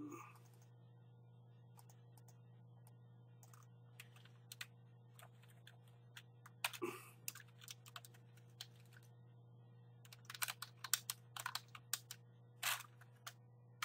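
Typing on a computer keyboard: a few scattered keystrokes, then a quick run of keys from about ten seconds in, over a faint steady electrical hum.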